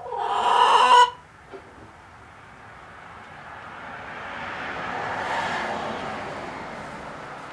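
A domestic hen gives one loud call lasting about a second. Then a soft rushing noise swells and fades over several seconds.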